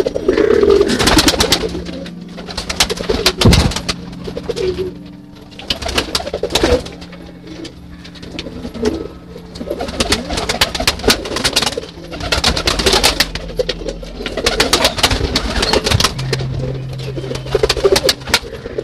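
Domestic pigeons cooing in a flock, with repeated bursts of wing flapping as birds flutter up.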